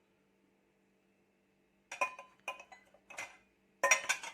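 Drinking glasses and dishes clinking against each other as they are handled in a dishwasher rack: a few light clinks starting about two seconds in, then a quick cluster near the end.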